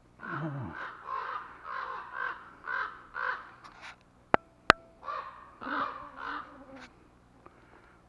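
Crows cawing harshly in a quick run of calls, then a few more after a pause: alarm calls scolding an intruder near their nest. Two sharp clicks, the loudest sounds, come in the pause.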